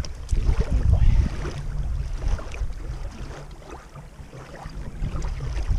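Strong wind rumbling on the microphone, easing off in the middle, with short splashes and water lapping in the shallows as a largemouth bass is lowered back into the water and released.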